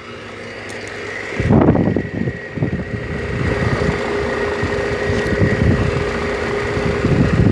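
Outdoor air-conditioner condensing unit running, a steady hum from its compressor and fan. From about a second and a half in, air rushes and buffets over the microphone as a low, uneven rumble, and the sound grows louder.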